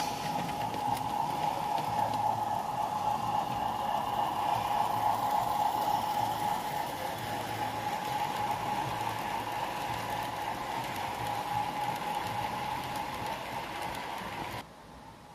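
Model freight train rolling past on garden track: a steady rumbling clatter of wagon wheels on the rails with a constant hum, louder a few seconds in and easing off as the last wagons go by, then cut off abruptly near the end.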